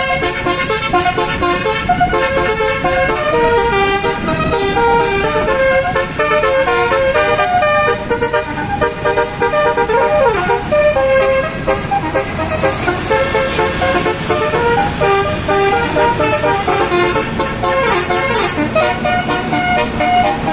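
Basuri telolet musical bus horn playing a tune, a continuous run of stepped notes changing pitch every fraction of a second.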